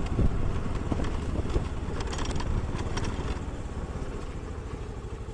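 Motorbike running along a rough gravel road, heard from the rider's position as a steady low rumble of engine and wind, with a few short clicks from stones under the tyres.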